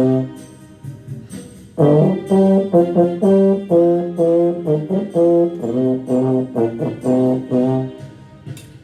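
Low brass playing the bluesy line of a school band piece in short, separated notes, stopping briefly just after the start and coming back in at about two seconds.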